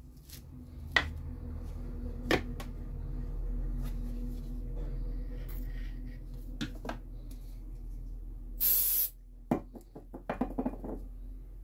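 Hands handling small MDF squares and blocks on a plastic-sheeted bench: scattered light knocks and taps of the pieces, a short hiss about nine seconds in, and a quick run of small taps just after, over a low steady hum.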